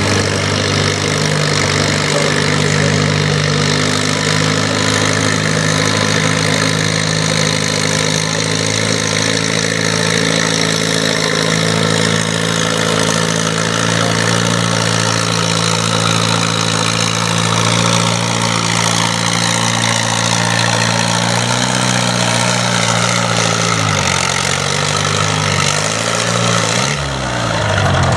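Farm pulling tractor's diesel engine running at a steady speed, its pitch stepping down and falling off over the last few seconds as it slows.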